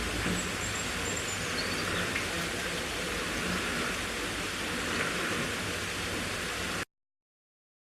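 Steady, rain-like hiss of outdoor noise, with a few faint high chirps about a second in. It cuts off abruptly near the end.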